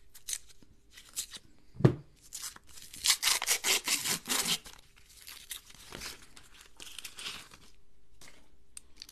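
Paper coin-roll wrapper being slit with a knife blade and torn open: a dense run of quick ripping and crinkling strokes from about two and a half to five seconds in, trailing off into softer rustling. A single sharp knock, the loudest sound, comes just before the tearing.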